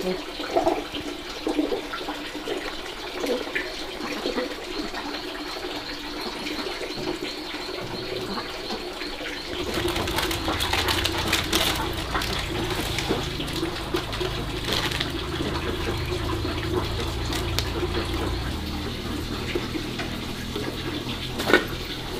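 A steady sound of running water. A low rumble joins about ten seconds in, and a single sharp knock comes near the end.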